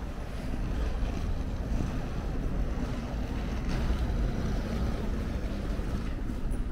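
Wind buffeting the microphone in a steady low rumble, over the faint hum of an open street.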